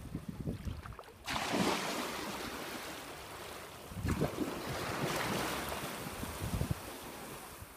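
Wind and small waves at a beach shoreline. Low buffeting of wind on the microphone, then a steady hiss that starts abruptly about a second in, swells again midway and eases off near the end.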